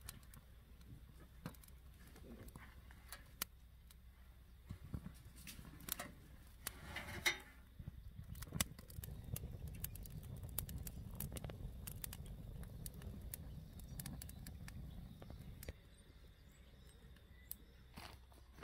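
Small fire of dry grass and twigs catching and burning, with scattered crackles and pops and a soft low rush while the flames are up in the middle; the rush stops suddenly near the end.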